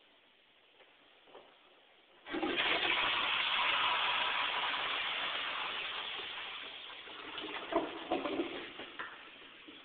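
An old toilet in a 1915 basement bathroom flushing: a sudden rush of water starts about two seconds in and eases off gradually.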